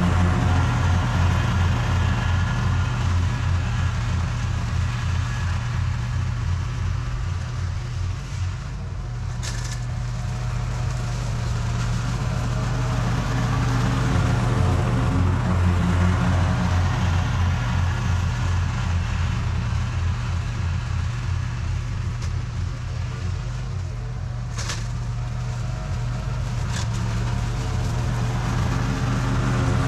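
Toro TimeCutter SS4260 zero-turn lawn mower's engine running steadily while mowing, rising and falling slightly in loudness, with a few short sharp ticks about a third of the way in and again past the middle.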